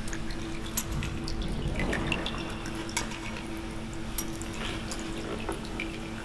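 Scattered small clicks and clinks with a water-like trickle over a steady low hum.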